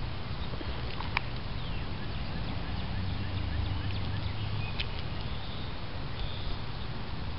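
Small gas engine of a motorised bike droning faintly and steadily, a little louder about three to four seconds in, with faint bird chirps and a couple of sharp clicks.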